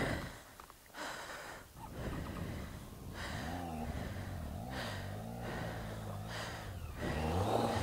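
A man breathing hard and gasping inside a helmet. From about three seconds in, a Triumph Tiger 800's engine is heard revving unevenly, its pitch rising and falling, as the bike is ridden slowly through deep mud ruts. The engine gets louder towards the end.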